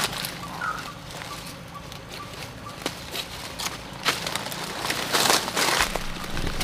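Dry leaf litter and twigs rustling and crackling as hands work on the forest floor, with scattered sharp snaps. The rustling grows louder about five seconds in.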